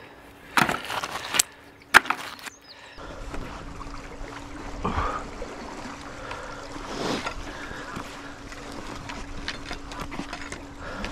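A few sharp knocks as magnet-fishing gear is handled, then a magnet rope being hauled up a stone bridge wall, a rusty metal bar on the magnet scraping and knocking against the stonework over a steady rushing background.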